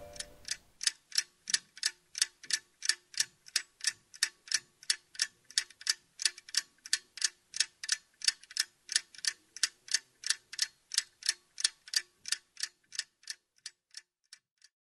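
A clock ticking at a steady pace of about three ticks a second, fading out near the end.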